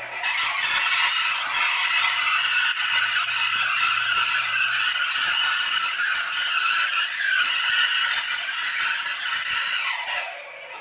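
ZVS-powered Tesla coil throwing arcs while run hard: a loud, steady crackling hiss of spark discharge that dies down near the end as the coil is shut off.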